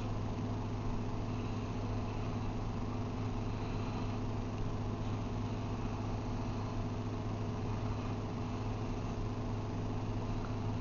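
Steady low machine hum with a few constant tones, unchanging in level.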